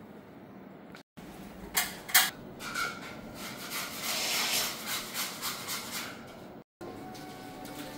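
Two sharp knocks, then irregular rubbing and scraping that swells and fades for a few seconds before cutting off suddenly.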